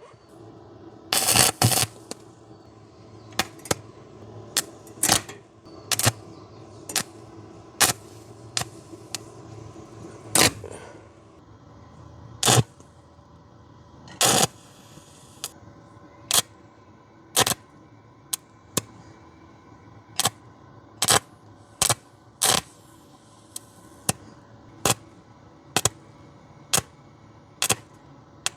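MIG welder laying short bursts of arc on thin sheet steel, each a sharp crackle under a second long, about one a second, with a longer burst about a second in. A steady hum sits between the bursts.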